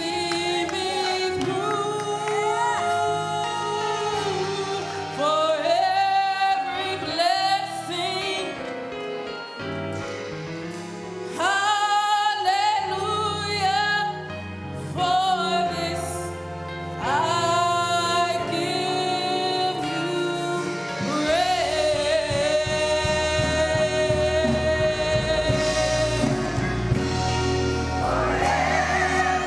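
Gospel music: a church choir singing with held, sliding notes, and the accompaniment growing fuller and steadier low down about two-thirds of the way through.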